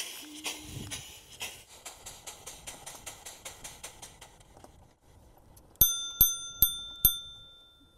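Steam motorcycle's engine exhaust chuffing at about five or six puffs a second, fading away over the first four seconds. Then a small bell, like a bicycle bell, rings four times in quick succession, each strike ringing on.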